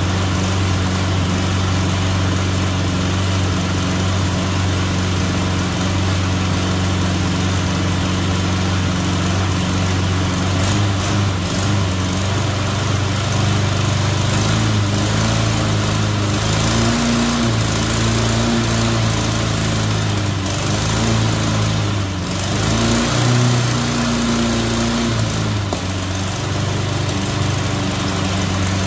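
Push mower's single-cylinder engine running steadily on a newly fitted carburetor. About midway its speed wavers and shifts up and down for several seconds, then settles back to a steady run near the end.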